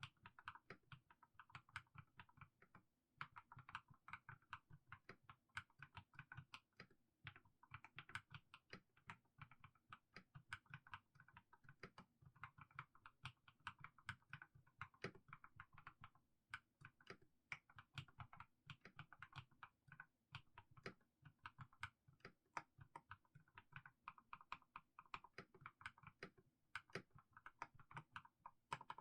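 Mechanical keyboard with fully lubricated Haimu Sea Salt linear switches being typed on slowly and steadily: quiet, deep keystroke clacks, several a second, with brief pauses.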